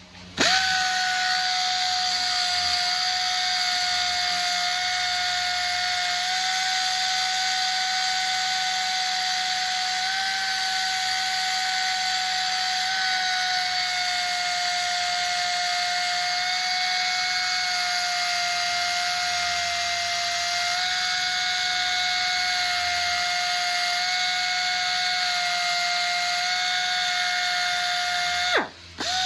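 Narrow belt sander running with a steady high whine while a small bolt is ground against its belt; the pitch dips slightly under load. About a second before the end it stops, winding down sharply, and starts up again at once.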